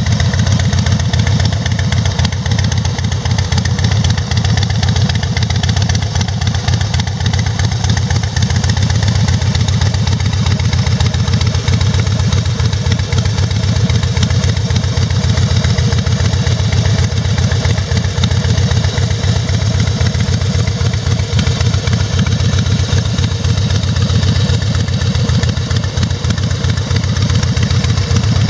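Harley-Davidson FXSB Breakout's air-cooled V-twin engine idling steadily, with an even low pulse and no revving.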